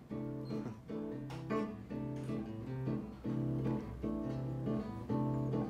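Acoustic guitar playing a samba introduction: plucked chords changing in a steady, lilting rhythm.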